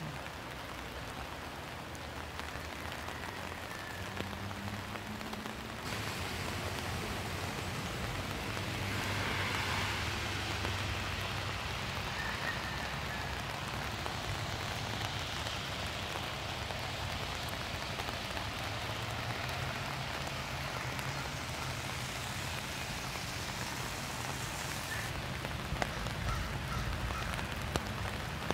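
Steady rain falling over a flooded, fast-running river, the rain and rushing water blending into one even hiss. It grows a little louder about six seconds in.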